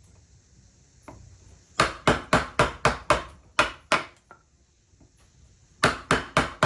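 Mallet striking a large No. 7, 22 mm carving gouge as it chops into a wooden chair seat: a run of sharp knocks at about three a second from about two seconds in, a pause, then another run near the end.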